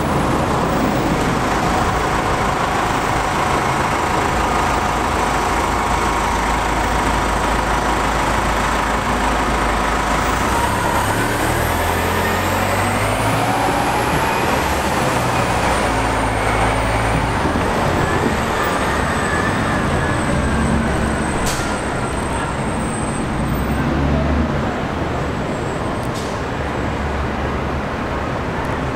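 New Flyer D60HF articulated diesel bus idling, then pulling away. About ten seconds in, its engine and transmission whine rise in pitch through several steps as it accelerates. Steady city traffic runs underneath.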